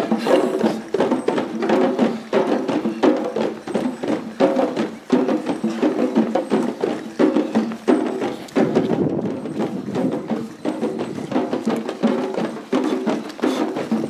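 A group of drummers playing a fast, steady rhythm of repeated strikes.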